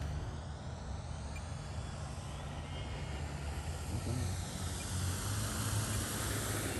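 Electric motor and propeller of a 3D-printed BF-109 RC model plane on a slow, full-flaps landing approach: a steady whooshing hiss that grows louder as the plane comes in low toward the microphone.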